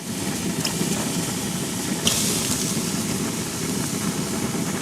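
Minced chicken sizzling on a hot griddle: a steady sizzle with a louder surge about two seconds in.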